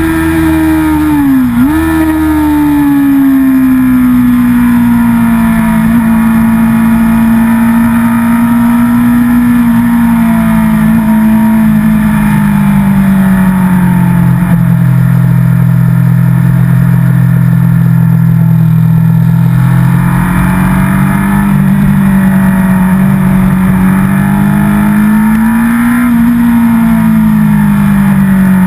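Racing motorcycle engine running hard at high revs, recorded from a camera mounted on the bike, with wind rush. Its note dips sharply about a second and a half in, then holds fairly steady with slow rises and falls.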